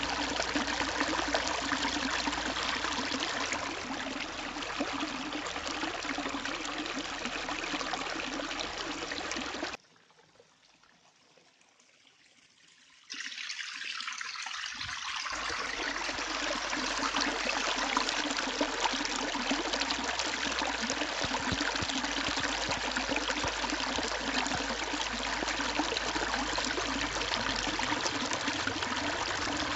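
Water pouring and bubbling onto stone, a steady splashing rush. About ten seconds in it cuts out to near silence for roughly three seconds, then carries on unchanged.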